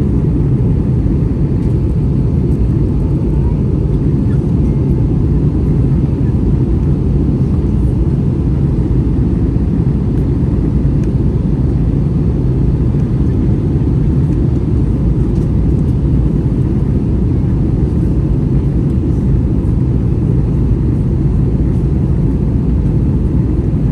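Steady low roar inside the passenger cabin of an Airbus A321 in flight, the IAE V2500 engines and rushing air making an even drone with no changes.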